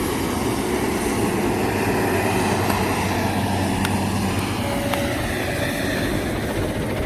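Heavy diesel engine running steadily at an even speed, with a few faint clicks about halfway through.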